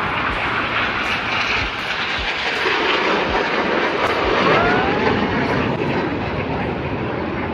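Several jet aircraft flying past in formation: a steady broad jet noise that swells to its loudest about four and a half seconds in, with a faint whining tone gliding upward through it.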